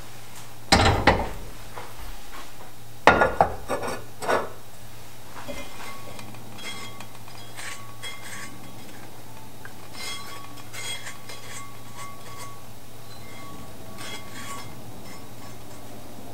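Cookware clattering: two loud bouts of metal knocking against a gas hob's grates, the second one about three seconds in. Softer scrapes and light clinks follow as a sticky caramel sugar mixture is spread in a baking pan with a spatula.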